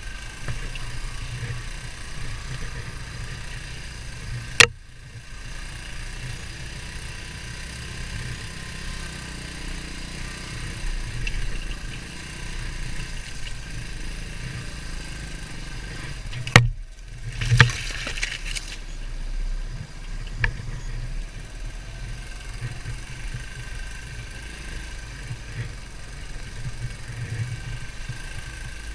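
Beta Alp 200 dirt bike's single-cylinder four-stroke engine running steadily at low revs. Two sharp knocks come about four seconds in and again about sixteen seconds in, and a short rush of noise follows soon after the second.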